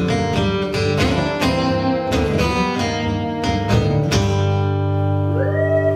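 Acoustic guitar strummed in a song's instrumental ending. About four seconds in it settles on a final chord that is left ringing.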